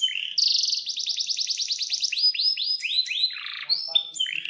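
Male domestic canary singing: a fast rolling trill of evenly repeated high notes, then a run of separate swooping notes.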